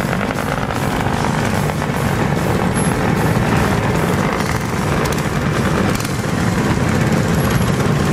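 Many mini bike engines running together at low speed as a pack rides off, a dense steady engine rumble.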